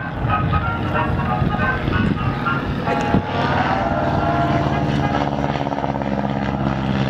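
Boeing Stearman biplane's radial engine and propeller running steadily in flight, with the pitch shifting a little about halfway through.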